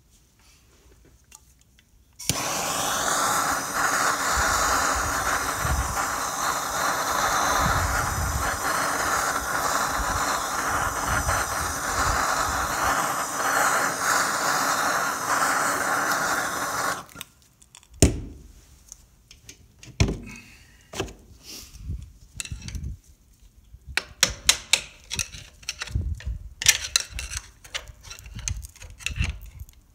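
MAP gas plumbing torch burning with a steady hiss. It starts abruptly about two seconds in and shuts off after about fifteen seconds, as it heats a seized PTO dog clutch on a tiller to free it. Sharp metallic clicks and taps follow, from tapping and prying at the seized part.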